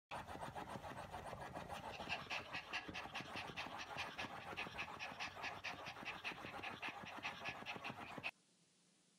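Small white dog panting fast, about five breaths a second, cutting off suddenly near the end.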